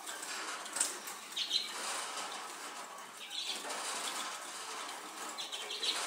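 Light rustling and crackling of sunflower seeds being shelled to feed a tame Eurasian siskin. Short, higher, brighter sounds come about a second and a half and three and a half seconds in.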